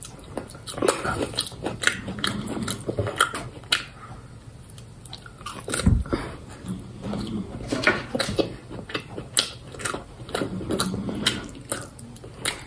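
Close-miked chewing and mouth sounds of someone eating rosé pasta and grilled chicken: many short wet smacks and clicks. A single dull thump comes about six seconds in.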